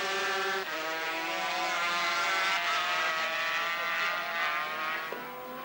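Two-stroke 500cc Grand Prix racing motorcycles running at high revs as several pass close together. Their engine notes overlap and shift slightly in pitch, and the sound fades a little near the end.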